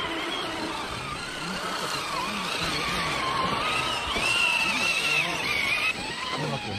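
Electric motors and geartrains of RC rock crawlers whining as they climb, the pitch rising and falling with the throttle over scrabbling tyre and rock noise.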